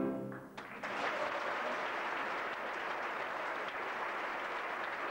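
An orchestra's final chord sounds and breaks off within the first second, then a theatre audience applauds steadily.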